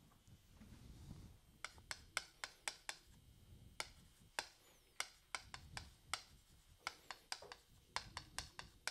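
Chalk tapping and scratching on a chalkboard while a heading is written, a string of faint, sharp taps at roughly two or three a second, starting about a second and a half in.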